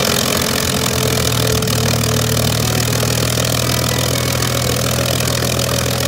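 P-51D Mustang's Packard Merlin V-12 engine idling steadily on the ground, propeller turning.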